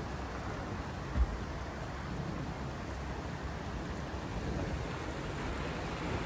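Shallow stony stream running fast, a steady rush of water with low rumble, and a short low thump about a second in.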